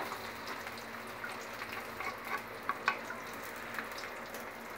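Sliced shallots and garlic sizzling steadily in hot cooking oil in a wok, with scattered small clicks and pops, a couple of louder ones about three seconds in.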